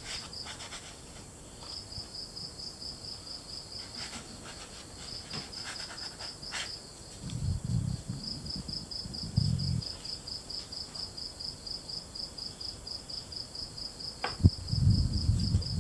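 A cricket chirping in a steady run of rapid, high-pitched pulses. Over it come soft scrapes and a few clicks of a plastic dough scraper on the stone counter and baking paper, one sharper tap near the end, and a few low muffled bumps.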